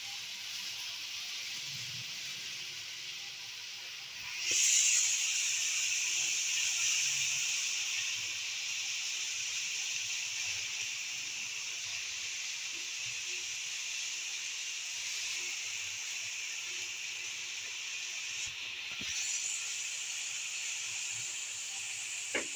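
Chopped karam saag greens sizzling in hot oil and garlic in a pan over a gas flame: a steady hiss that grows louder about four and a half seconds in and drops out briefly near the end.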